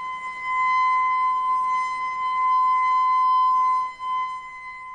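Outdoor tornado warning siren sounding a steady alert tone, holding one pitch, its loudness swelling and dipping.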